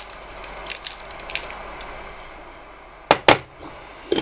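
Dried salad herbs shaken from a clear container over minced meat in a plastic bowl: a run of light, quick rattling ticks in the first second and a half. About three seconds in come two sharp, loud knocks, the loudest sounds here, with a smaller one near the end.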